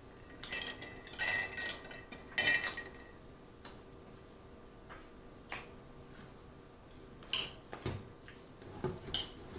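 A metal fork clinking and scraping against a glass bowl of spaghetti in three ringing bursts during the first three seconds. Then a few scattered clicks and rustles as a piece of fried chicken is picked up from a plastic tray.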